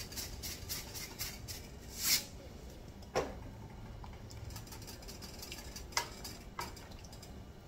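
Seasoning shaken from a shaker into a stainless steel saucepan, a quick run of rattling shakes, then a silicone spatula stirring in the pot and knocking sharply against it a few times, about three and six seconds in.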